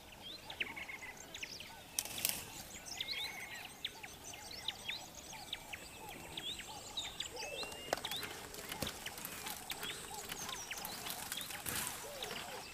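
A chorus of many small birds, with short high chirps and whistled calls overlapping one another, broken by a few sharp clicks.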